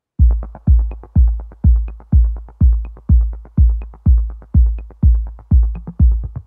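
Electronic music beat: a steady kick drum about twice a second with light ticks between, starting just after the beginning.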